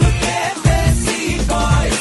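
Pop mashup music with a heavy bass beat and melodic lines over it.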